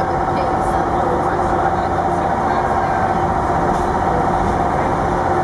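South Australian Railways Red Hen diesel railcar running, heard from inside the passenger cabin: a steady engine drone as it moves along the track.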